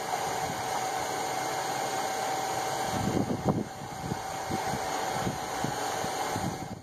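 A hot steel hammer head stirred in a bucket of quench oil during hardening, crackling and bubbling in short clusters from about three seconds in, over a steady fan-like whir with a constant hum tone.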